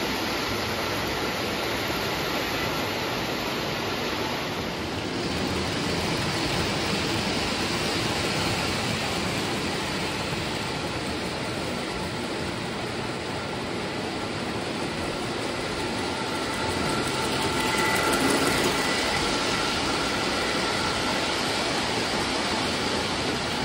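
Lionel O-gauge model trains rolling on three-rail track: a steady rumble of wheels and motors, rising a little past halfway as passenger cars pass close by.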